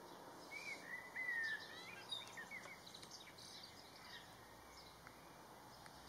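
A small bird singing: a clear warbling whistled phrase about half a second in, the loudest sound, then scattered short high chirps over a faint steady background hiss.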